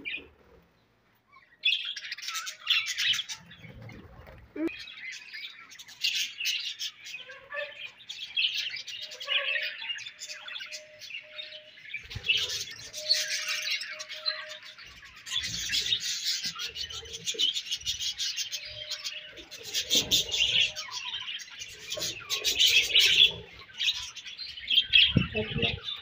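A colony of budgerigars chattering and warbling together: a dense, continuous mix of chirps and trills that starts after about a second of near silence, with a few low thumps here and there.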